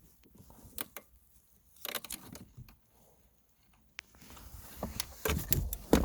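Scattered metal and plastic clicks and rattles as long needle-nose pliers work a steel shifter cable into a plastic clip on the shifter assembly. There is one sharp click about four seconds in, and the clicking gets busier and louder near the end.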